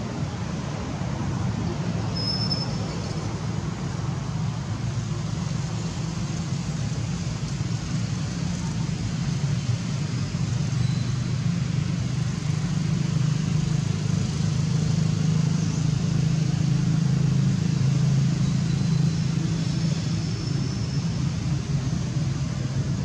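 Steady low outdoor background rumble, growing a little louder past the middle, with one short high chirp about two seconds in.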